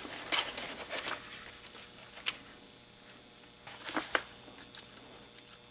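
Pages of a paperback book flipped by hand: a few short papery rustles and flicks with quieter gaps between.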